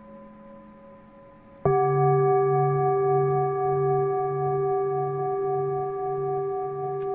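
A Tibetan singing bowl is struck once, just under two seconds in, over the fading ring of an earlier strike. It rings on in several steady tones, with a slow pulsing waver in its deepest tone.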